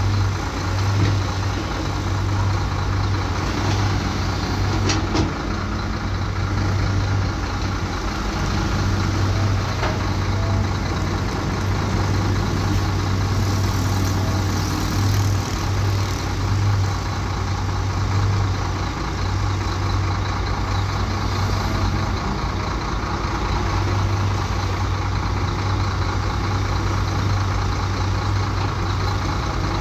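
Shantui DH bulldozer's heavy diesel engine running steadily, with a single sharp metallic knock about five seconds in.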